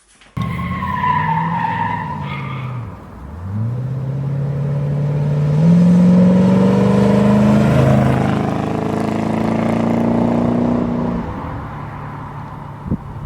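Car tyres squeal briefly, then the engine revs up and accelerates hard. Its pitch climbs, steps up once, holds high for several seconds and then fades away.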